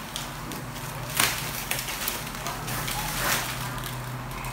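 Thin plastic wrapping rustling and crinkling in irregular bursts as it is pulled off a framed wall clock.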